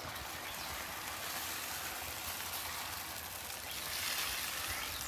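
Beaten eggs sizzling as they are poured onto a hot ceramic-coated griddle plate at about 400 degrees, a steady, fairly quiet frying hiss.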